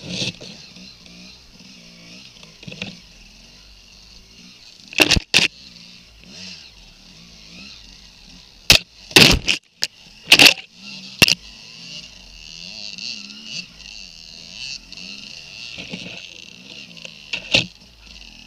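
Dirt bike engine running at low speed and revving up and down unevenly as the bike is worked through deep snow and brush. Several sharp knocks and clatters cut through it, a pair about five seconds in and a cluster around the middle, and these are the loudest sounds.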